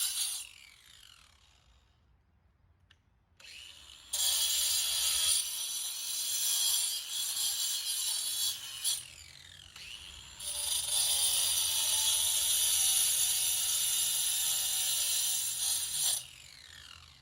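Ryobi ONE+ 18V cordless 4-1/2 in. angle grinder grinding natural stone: two passes of about five seconds each, a loud gritty hiss over a wavering motor whine, with the disc spinning down in a falling whine after each pass.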